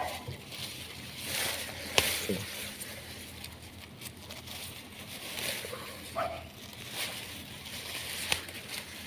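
Lemongrass stalks and leaves being pulled and handled: intermittent rustling and crackling, with a sharp click about two seconds in.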